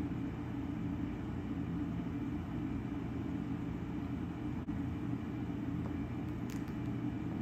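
Steady low rumble of a room's ventilation, a constant even hum with no change throughout.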